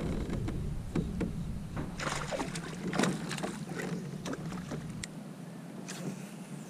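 Sounds of a fishing kayak on the water: scattered knocks and clicks with a few small splashes, over a low rumble that cuts off about five seconds in.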